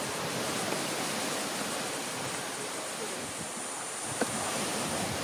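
A steady rushing outdoor noise, with a kitchen knife slicing green chillies on a plastic cutting board; one sharp tap of the blade on the board about four seconds in.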